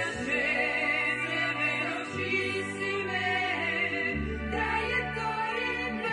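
Music with voices singing over long held bass notes that change to a new pitch about every two seconds.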